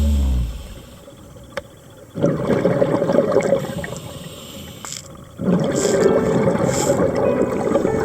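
Scuba diver breathing through a regulator underwater: two long rushes of exhaled bubbles, each about two seconds, with a quieter inhale between them.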